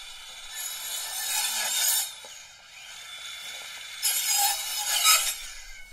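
DeWALT Atomic 20V 4-1/2-inch cordless circular saw running with a steady whine and cutting twice through wooden pallet pickets. Each cut is louder and harsher: one starts about half a second in and lasts over a second, the other about four seconds in.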